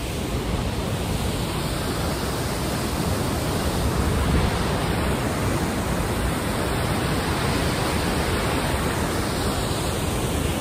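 Siffleur Falls pouring into its gorge: a steady, even rush of falling water.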